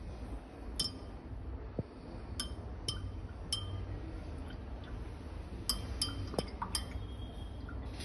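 Glass stirring rod clinking against the wall of a glass beaker while stirring graphene powder into isopropyl alcohol: about seven short, ringing clinks at uneven intervals.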